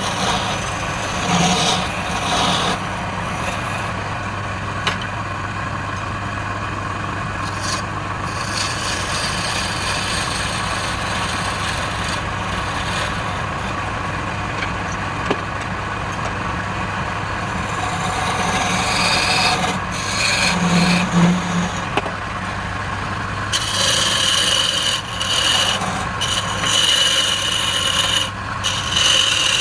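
Wood lathe running with a steady motor hum while a turning tool cuts the spinning wood, a continuous scraping that grows louder and more uneven near the end.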